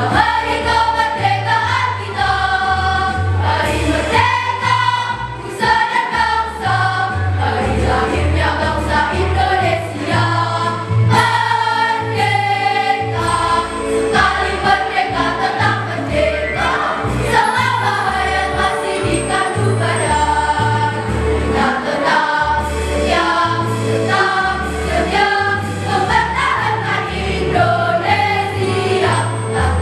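Junior high school choir singing in parts, over an instrumental accompaniment with a bass line.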